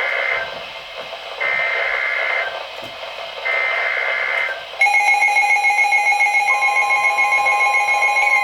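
Emergency Alert System header tones from a weather-radio broadcast: three one-second bursts of buzzy data tones about a second apart. About five seconds in, a loud steady attention tone begins, and a second, higher tone joins it about a second and a half later. Together they signal that a new warning is about to be read.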